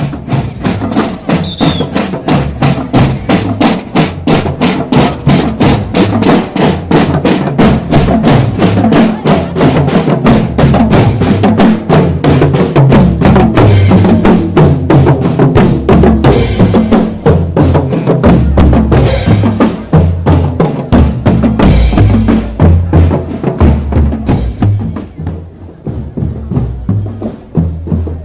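Marching drum band percussion playing a fast, steady beat: snare and bass drums struck together, with a few cymbal-like crashes in the middle, the playing thinning out near the end.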